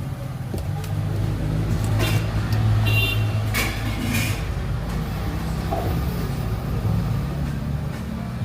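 A motor vehicle engine running steadily with a low hum, with a brief high toot about three seconds in.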